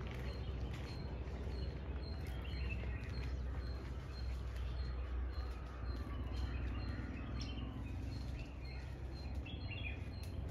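Forest ambience: scattered bird chirps and calls over a steady low rumble.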